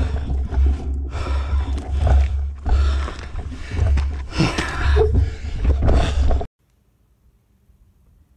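Wind buffeting an action camera's microphone, with bursts of heavy panting breath about once a second. The sound cuts off suddenly about six and a half seconds in, leaving near silence.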